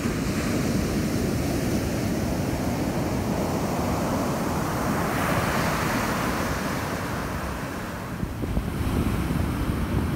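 Ocean shorebreak surf breaking and washing up the sand, with a wave's wash swelling about halfway through. Wind buffets the microphone with uneven low rumbles near the end.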